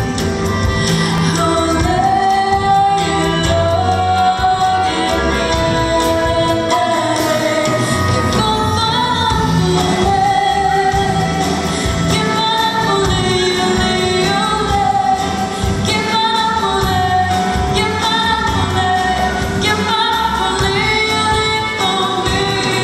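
A woman singing a melodic lead into a microphone over a live band with drums, with the low bass and cymbal ticks running under the voice.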